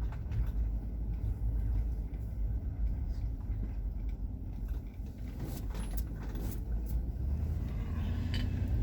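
Motor vehicle running, a steady low rumble, with a few light clicks about five and a half seconds in and again near the end.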